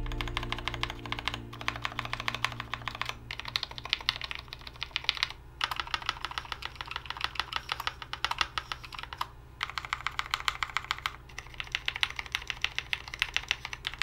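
Typing on a GMMK Pro, a gasket-mounted 75% mechanical keyboard with a CNC aluminum case: fast runs of key clicks broken by several short pauses.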